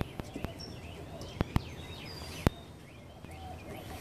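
Chickens pecking at pork in a plastic tray: sharp taps of beaks striking the tray, several in the first half second and the loudest about two and a half seconds in. Short high bird chirps sound throughout.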